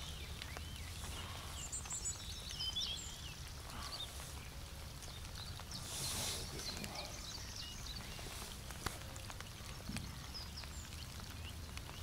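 Steady rain falling on a lake, under a low rumble, with a few short high bird chirps about two seconds in and a brief hiss near the middle.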